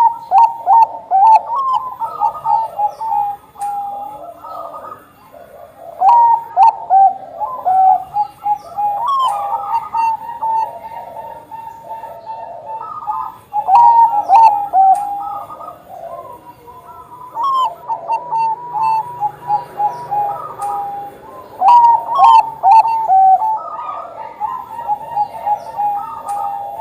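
Zebra dove of the Thai 'Bangkok' strain (perkutut bangkok) cooing: repeated phrases of quick staccato coo notes running into longer held notes, a new phrase every few seconds.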